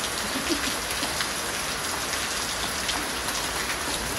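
Heavy tropical downpour: torrential rain pouring steadily onto the flooded ground, with individual close drops ticking now and then.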